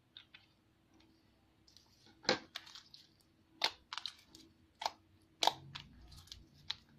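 Clear glue-and-lotion slime being worked by hand, giving a string of sharp squishy pops and clicks, the loudest about two seconds in and half a dozen more after.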